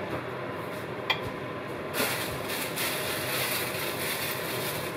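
Creamy mushroom sauce simmering in a frying pan on the stove: a steady hiss with a single click about a second in, turning brighter and a little louder about two seconds in.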